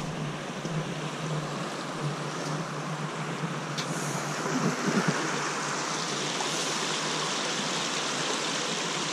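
Shallow rocky stream rushing over stones: a steady hiss of running water that grows fuller about six seconds in. A few light knocks about five seconds in.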